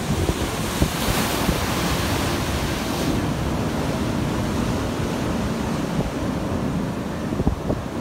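Ocean surf breaking and washing, with a louder hiss of whitewater between about one and three seconds in. Wind buffets the microphone throughout as a low rumble.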